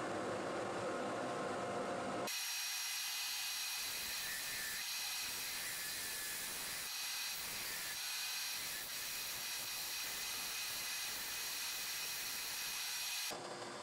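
Wood lathe running while a hand-held turning tool cuts the spinning maple cup: a steady hiss of the cut with a fixed high whine. About two seconds in the sound changes abruptly, turning thinner and brighter as the low hum drops away, and it changes back near the end.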